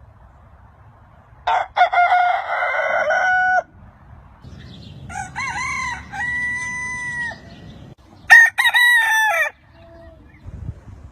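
Rooster crowing three times, each crow about one to two seconds long, with a faint low rumble between the crows.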